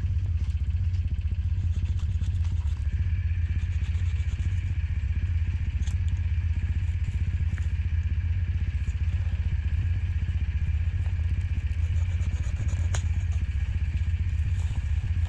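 Can-Am ATV engine idling with a steady low hum, with a few faint clicks over it.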